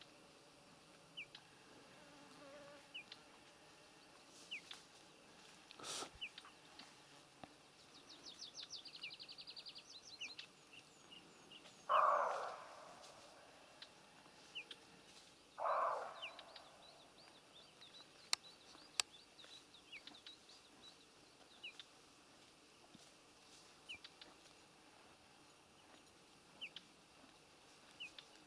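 Quiet meadow ambience: a high, short rising chirp repeats every second or two, with a fast trill about eight seconds in. Twice near the middle, about four seconds apart, a loud brief rushing noise stands out as the loudest sound.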